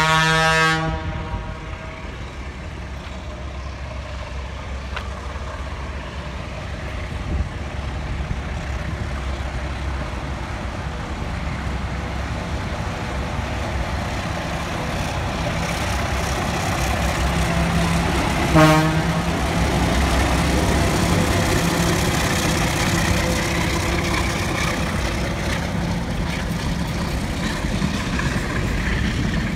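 Diesel freight locomotive approaching and passing, its horn sounding as the clip opens and again in a short toot about two-thirds of the way through, over the steady drone of its engine. After that the container wagons roll by, their wheels rumbling and clattering over the rails.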